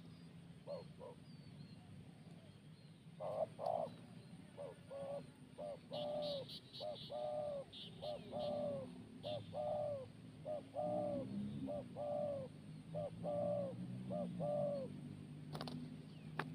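A bird calling: a long series of short pitched hoots, each rising then falling, repeated about twice a second, with fainter high chirps above them.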